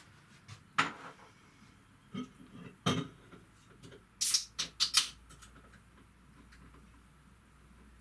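Scattered knocks, clicks and rattles of household items being handled and packed, in quick single strikes, with the loudest cluster of three or four about four to five seconds in.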